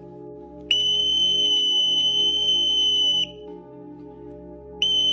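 A person whistling one steady high note, held for about two and a half seconds, then starting again near the end, over soft background music.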